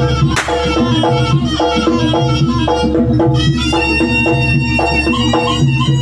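Live jaranan ensemble playing Javanese traditional music: gamelan-style metal percussion repeating a steady pattern over drums, with a crash about half a second in and a held high reed-pipe note entering at about three and a half seconds.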